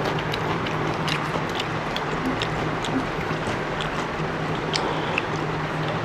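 Steady background noise with a low hum, over which come scattered small clicks and smacks: people eating fish and rice by hand.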